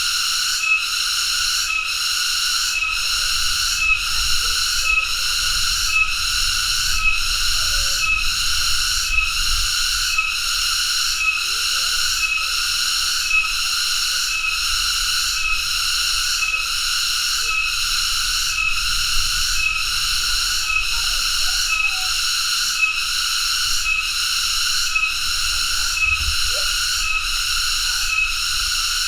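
Cicada calling: a loud, shrill, continuous buzz that pulses evenly about one and a half times a second.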